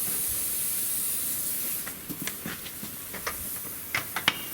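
Aerosol can of penetrating oil spraying in a steady hiss for about two seconds onto a seized bogie locating pin, to loosen it. A series of short metallic clicks and knocks follows, the loudest near the end.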